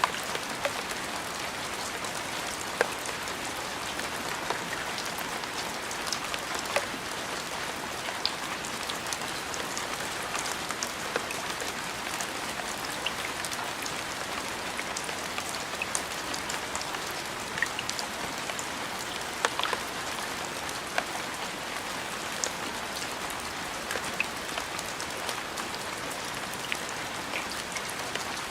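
Steady rain falling on a hard surface: a continuous even hiss scattered with many sharp individual drop ticks.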